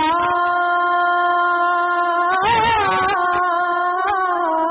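A woman singing a hamd (devotional song to God) holds one long steady note. About halfway through the note wavers in a short ornament, then steadies again.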